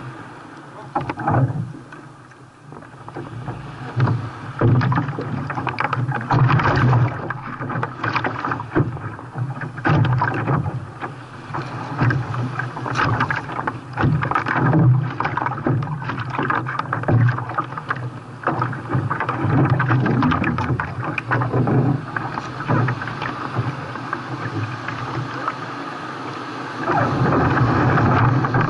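Sea water splashing and rushing against a kayak as it is paddled through waves, with irregular splashes that swell and fall in loudness.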